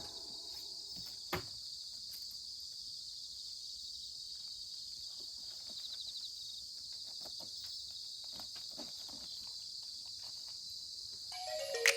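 Insects chirring in a steady, high-pitched chorus, with a single sharp click about a second and a half in and a few soft ticks.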